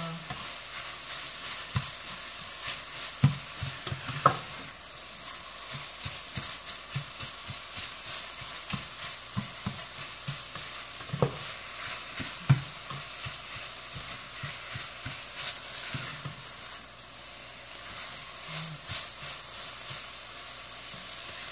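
Diced chicken sausage and vegetables sizzling in a stainless steel skillet while a spatula stirs and scrapes them, with irregular scraping clicks and a few louder knocks of the spatula against the pan.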